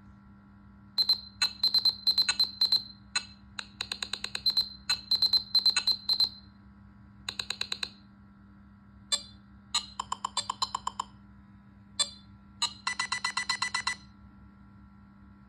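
Nothing Phone (1) built-in ringtones playing from the phone's speaker: patterns of short, high electronic bleeps in quick rhythmic clusters. A different ringtone starts about 7 s in and another about 12 s in; the last is a fast run of beeps pitched lower.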